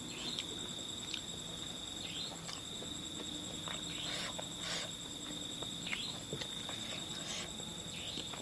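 Crickets trilling steadily in a fine pulsing chirr, with a few short soft noises scattered through it.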